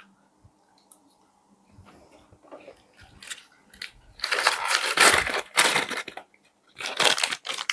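Crispy fried chicken crackling and crunching as it is pulled apart and bitten, in two loud bouts: one of about two seconds starting about four seconds in, then a shorter one near the end.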